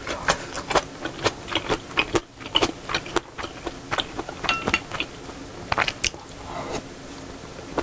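Close-miked chewing of spicy seafood noodle soup (samseon jjamppong): many small wet mouth clicks and crackles in quick, irregular succession.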